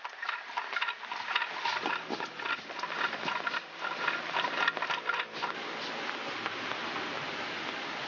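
Hand-powered spindle drill boring into a green bamboo tube: a scratchy rasping with many quick, irregular clicks, settling into a steadier scraping hiss for the last couple of seconds.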